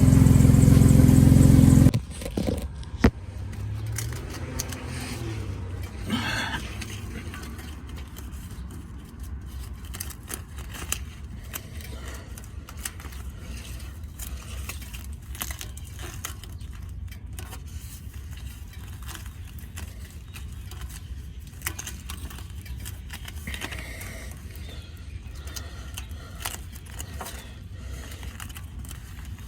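Jeep Liberty engine running with a leaking exhaust, loud and steady, stopping abruptly about two seconds in. After that, scattered small clicks, scrapes and rustles over a low steady hum.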